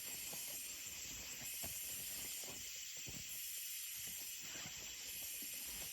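Night insects buzzing in a steady high hiss, with a higher band pulsing on and off about once a second. Faint rustles and knocks sit underneath.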